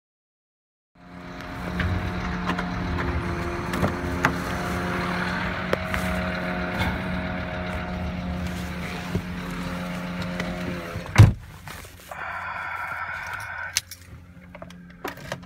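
A steady hum with several held tones, then one heavy thump about eleven seconds in as a car door shuts, followed by quieter cabin sounds.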